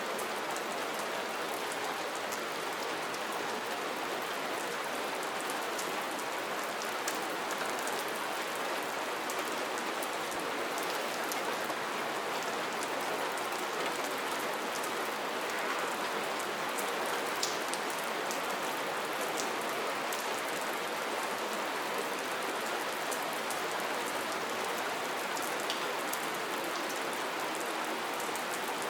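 Steady rain, a constant even hiss with many small individual drops ticking through it.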